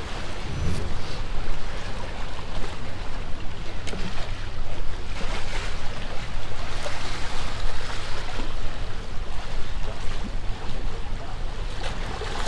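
Steady wind and surf noise: choppy waves washing against wooden pier pilings, with wind rumbling on the microphone.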